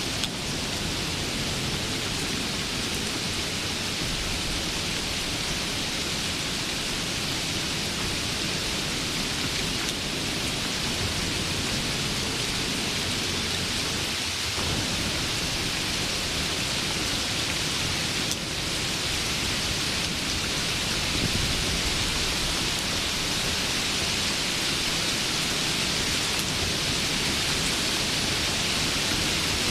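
Steady rain, an even, unbroken hiss with no separate drops standing out.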